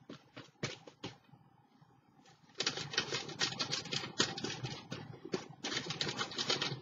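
Paper and craft materials handled on a tabletop: a few light taps, then from about two and a half seconds in a dense run of crackly rustling and clicking.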